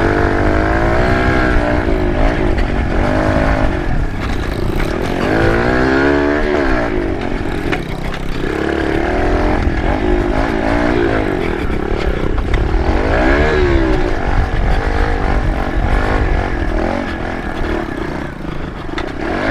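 Kawasaki KLX110 pit bike's small air-cooled single-cylinder four-stroke engine revving up and backing off again and again as it is ridden, heard close up. Wind rumbles on the microphone underneath.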